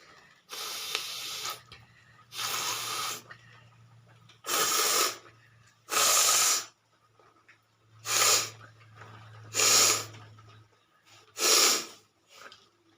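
A person forcefully blowing their nose, seven hard blasts of air through the nostrils, each under a second long and about one and a half to two seconds apart. A faint steady low hum runs underneath.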